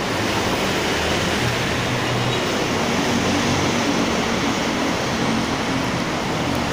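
Steady road traffic noise: a continuous wash of passing vehicles with a low engine hum underneath.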